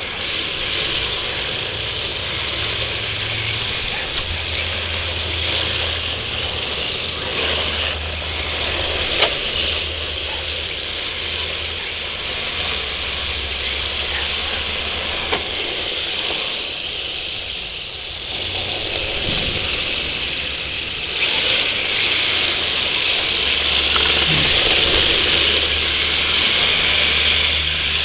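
Electric RC drift cars running: a steady hiss from the cars over a low steady hum, with a few sharp clicks along the way.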